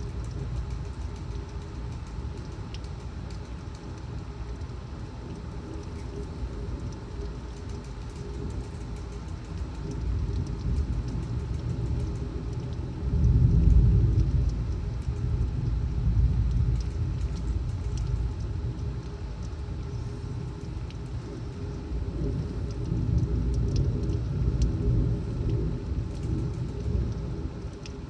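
Severe thunderstorm heard from indoors: steady rain and gusting wind with a low rumble that rises and falls, swelling strongly about halfway through and again near the end, while faint drops tick against the window.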